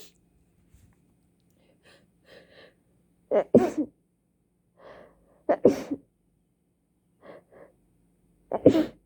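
A person's sneezing fit: three hard sneezes about two and a half seconds apart, each led by quick gasping in-breaths.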